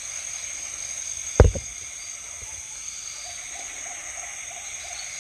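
Night insects shrilling steadily in several high tones, broken about a second and a half in by a sharp double knock, with a faint pulsing call repeating several times a second near the end.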